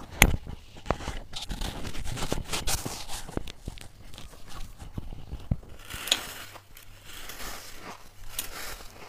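Powdery white frost crunching and crackling as it is bitten and chewed close to the microphone, with a sharp snap just after the start and another about six seconds in.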